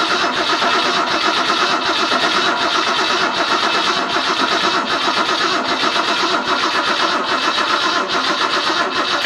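Ford 200 inline-six being cranked over by its starter motor for about nine seconds without firing, even with ether in the carburetor, then the cranking stops. The engine was not getting enough power to its ignition coil.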